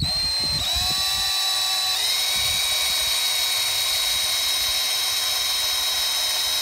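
DeWalt cordless drill with a small bit running steadily, pre-drilling a pilot hole through a metal mounting plate. Its whine climbs in the first second, steps up in speed about two seconds in, then holds steady.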